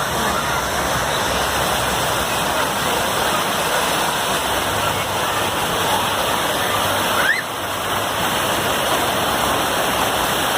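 Steady rush of falling and splashing water at a water park, with faint voices in the background and a brief rising squeal about seven seconds in.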